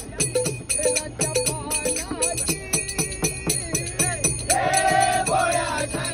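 Bhajan accompaniment of brass hand cymbals (taal) clashed in a steady beat, about three strikes a second, over a hand drum. A man's singing voice comes in about four and a half seconds in.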